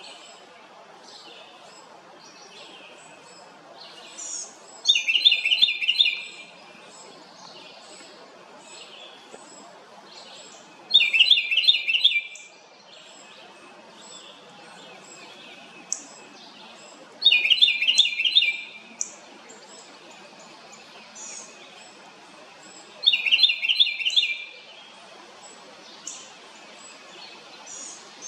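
House wren singing loud bursts of rapid notes: four songs, each about a second and a half long and roughly six seconds apart, with faint high chirps in between.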